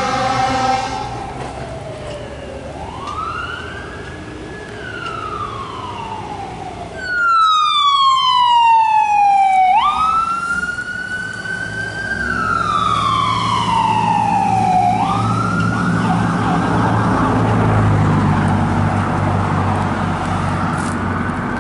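Emergency vehicle horn sounding a steady note that stops about a second in, followed by a fire truck's siren wailing, rising and falling more quietly. Then an ambulance's electronic siren passes loud: its wail sweeps down and jumps sharply back up twice, then gives way to engine and road noise.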